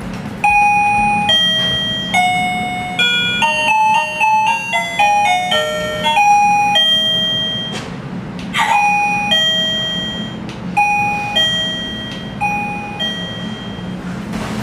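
KERUI M525 wireless doorbell chime playing its electronic tunes: first a quick multi-note melody, then, after a short break near the middle, a two-note ding-dong repeated several times.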